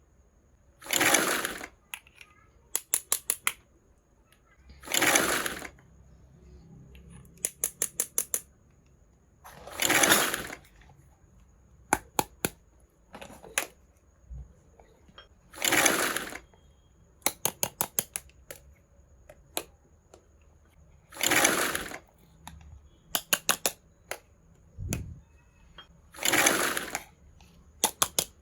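Small objects being handled close to the microphone in a repeating pattern. A short rasping swish comes about every five seconds, six times in all, and after most of them comes a quick run of half a dozen small clicks.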